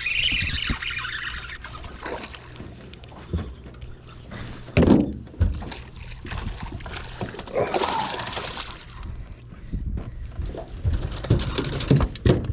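Water splashing and sloshing beside a small fishing boat, with knocks on the hull: a strong one about five seconds in and several near the end, over a steady low hum.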